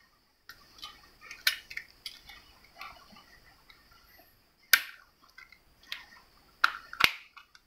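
Hard plastic clicks and small scrapes from a white plastic alarm sensor case being prised open with a pen-like tool to change its coin-cell battery, with sharp snaps about a second and a half in, near the middle, and twice near the end.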